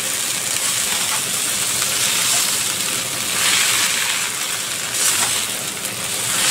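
Noodles and bean sprouts sizzling in a hot wok as they are stirred and tossed with a spatula: a steady frying hiss that swells louder a few times.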